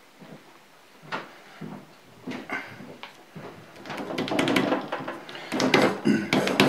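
Hand scrubbing and wiping the oily metal top of a Bridgeport rotary table. A sharp knock comes about a second in, then scratchy rubbing strokes that grow louder over the last few seconds.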